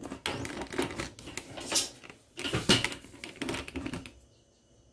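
A wooden spatula scraping and knocking around a cast iron wok: a quick, irregular run of clacks and scrapes that stops about four seconds in.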